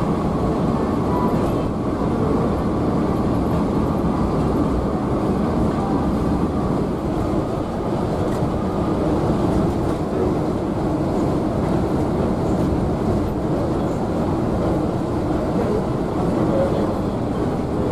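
Steady cabin noise inside a Scania K360iB coach at highway speed: a constant rumble of engine and tyres on the road.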